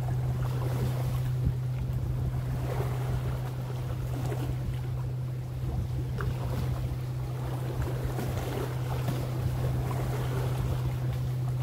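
Lakeshore ambience: a steady low drone of a boat engine, under small waves lapping at the shore and wind on the water.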